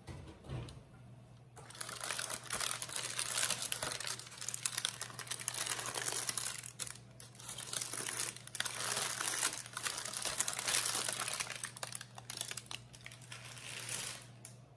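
Parchment paper crinkling and rustling as it is gathered up and lifted out of a tart shell, with the uncooked rice used as baking weights shifting inside it. It starts about two seconds in and stops near the end.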